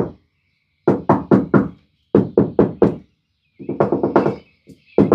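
Knuckles rapping quickly on the car's sheet-metal body panel in several bursts of four to six knocks, with short pauses between them, to compare the sound over body filler with the sound over bare metal.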